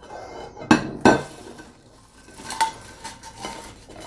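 Stainless-steel mesh rotisserie basket from an air fryer oven clinking and clattering against a ceramic plate as it is opened and the fries are tipped out. Several sharp metallic clinks with brief ringing, the loudest about a second in.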